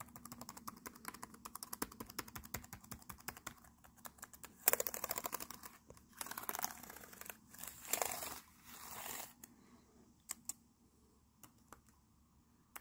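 Keys of a Lenovo ThinkPad T460 laptop keyboard being pressed in quick runs, tested one after another for ones that fail to register. The keyboard is faulty and half of its keys don't work. Dense clicking for about four seconds, then three short bursts of hiss-like noise, then a few single key clicks near the end.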